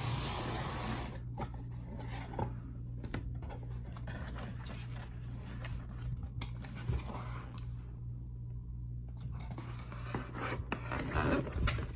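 Hands handling and opening watch packaging close to the microphone: irregular scraping, rubbing and rustling with scattered clicks and taps, over a steady low hum.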